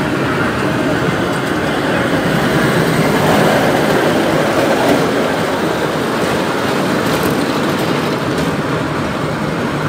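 Kiddie amusement-park train ride running along its track: a steady noise of its wheels and small motor.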